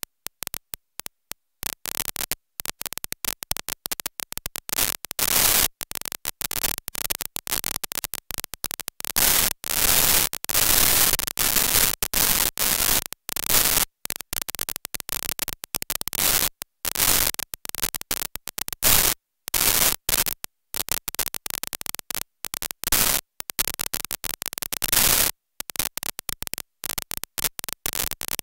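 Harsh static hiss chopped into short bursts by frequent, abrupt dropouts to dead silence, like glitching recording audio.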